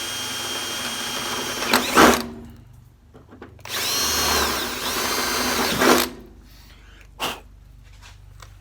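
Power drill with a 1/4-inch bit boring through a Jeep CJ's sheet-metal fender. The first run lasts about two seconds and ends in a loud burst. After a short pause a second run of about two and a half seconds follows, with the motor speed rising and falling. There is a short sharp click about seven seconds in.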